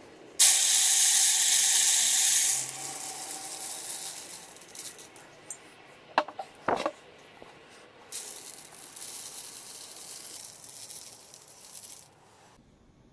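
Dry grain seed poured from a glass jar into a plastic bottle, a rushing hiss that is loudest at the first pour and then fades. A few sharp knocks follow, then a second, quieter pour.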